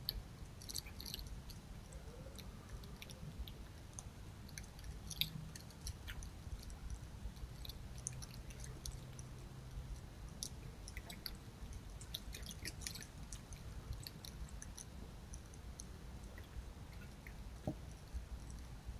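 Red fox chewing food from a bowl: irregular clicks and snaps of its jaws and teeth, coming in clusters with short pauses between them.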